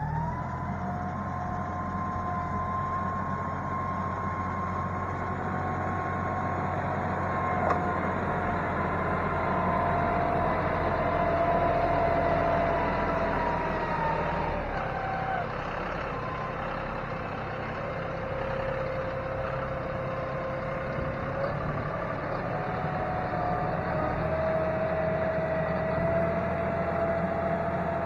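John Deere utility tractor's diesel engine running steadily under working load as the tractor drives back and forth with its loader bucket spreading clay material, with a steady whine over the engine hum that shifts pitch a few times. It grows louder as the tractor comes close, around the middle.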